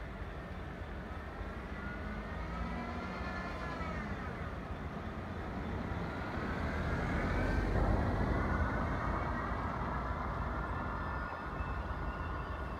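Class 66 diesel locomotive's two-stroke V12 engine working as it approaches with a freight train: a low rumble under whining tones that rise and fall, growing louder to a peak about two-thirds of the way in, then easing slightly.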